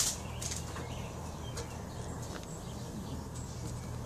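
Monk parakeet in a wire cage making a few faint, short chirps and clicks spaced out over a few seconds, over a steady low background hum.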